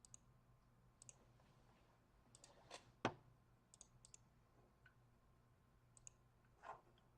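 Faint, scattered clicks of a computer mouse, several in quick pairs, the loudest about three seconds in.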